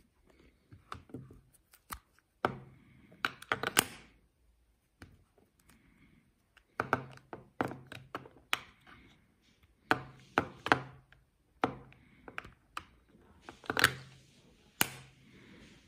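Apple AirPods charging case and earbuds being handled: several clusters of sharp clicks and taps as the magnetic lid snaps open and shut and an earbud is lifted out and set against a laptop.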